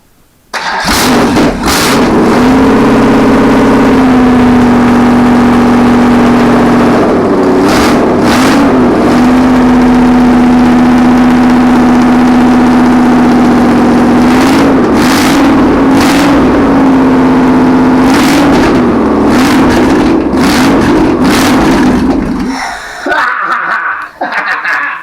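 Freshly rebuilt Rover aluminium pushrod V8 running with no exhaust fitted, loud and open. It catches about half a second in, runs at a steady fast idle with the throttle blipped several times, and is shut off about 22 seconds in.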